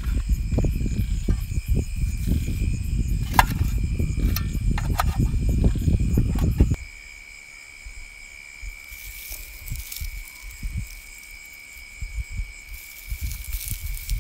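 Night insects trilling steadily in high, continuous tones. For the first half a loud low rumble with a few sharp clicks covers them, then stops abruptly about seven seconds in.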